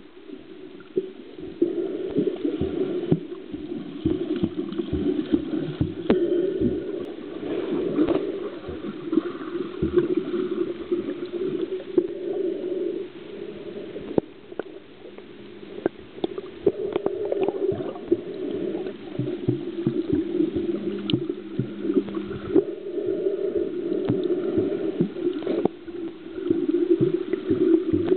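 Water gurgling and sloshing as a steady low wash that swells and eases every few seconds, with many small clicks and knocks scattered through it.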